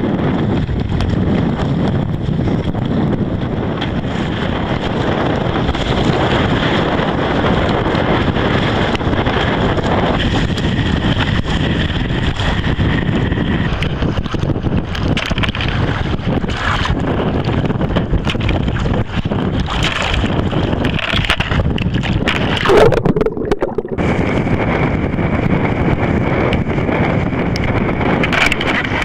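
Strong wind buffeting the microphone over rough, choppy water, a steady loud rushing noise. About three-quarters of the way through there is one loud splash or knock, then a brief muffled dropout before the wind noise returns.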